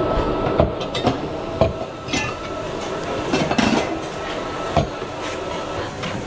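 Stainless steel milk jugs knocking and clinking against each other and a steel bench as they are handled, a few separate knocks, over a steady background hum.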